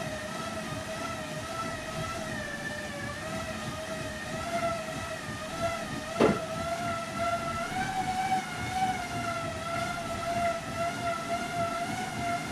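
Bicycle rollers spinning under a road bike's tyres: a steady whine over a rumble, its pitch wavering slightly with the pedalling. A single sharp click about six seconds in.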